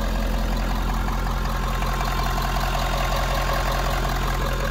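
2018 Ford F-350 King Ranch's V8 engine idling steadily, heard up close over the open engine bay: a low, even hum with a faint whine above it. It sounds really, really good.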